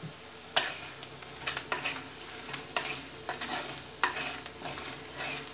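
Wooden spatula stirring and scraping okra around a clay pot, in irregular strokes, with a low frying sizzle underneath.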